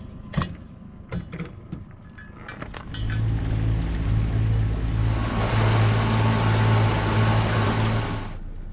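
A few sharp clicks and knocks, then a MacGregor 26 motorsailer's outboard motor running steadily with a low hum from about three seconds in. A loud rushing hiss joins it for its last three seconds, and both cut off suddenly near the end.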